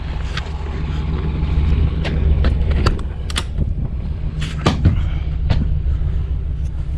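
Truck engine idling steadily, with scattered sharp clicks and knocks from handling gear close by.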